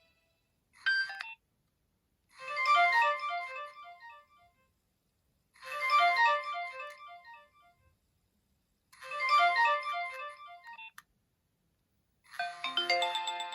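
Nokia 2600 mobile phone ringtone: a short electronic melody with several notes sounding together, repeating three times with short pauses. A brief different snippet sounds about a second in, and another tone begins near the end.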